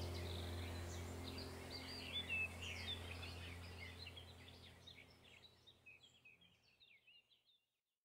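Birds chirping and twittering over a steady low hum, the whole fading out to silence about halfway through.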